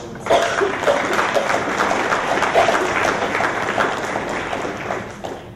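Audience applauding: many hands clapping together in a dense, even patter that starts almost at once and dies away near the end.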